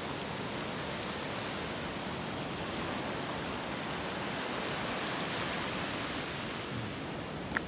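A steady, even rushing noise, swelling slightly in the middle, with one short click near the end.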